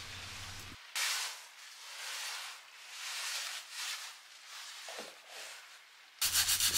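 Soft swishing of descaling liquid being sloshed in a plastic tub around a soaking heat exchanger barrel, swelling and fading about once a second.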